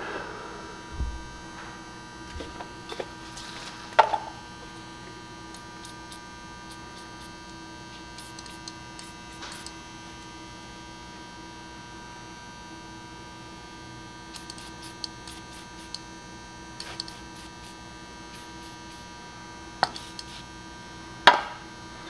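Steady electrical hum, with scattered light clicks and a few sharper knocks, the loudest about four seconds in and again shortly before the end.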